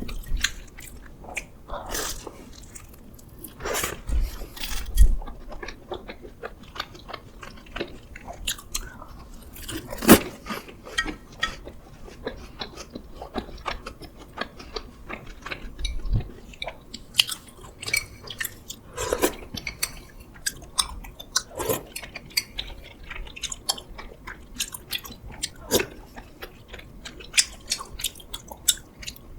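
A person eating close to the microphone: irregular bites and chewing with crisp, crackly crunches, the loudest bites about five and ten seconds in.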